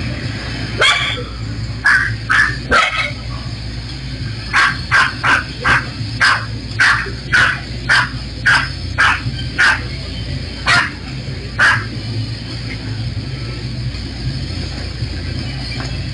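A dog barking in short, sharp barks: a few spaced ones, then a run of about a dozen at roughly two a second that stops near twelve seconds in.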